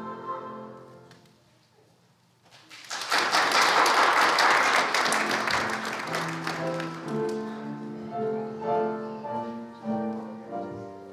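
A choir's last sung chord dies away, then after a moment of quiet the congregation applauds for a few seconds. Keyboard music with held notes begins as the applause fades.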